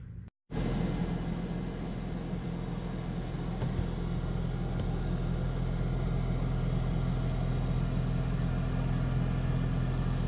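Air fryer running while it cooks, its fan and motor making a steady whirring noise over a low hum. The sound begins abruptly about half a second in.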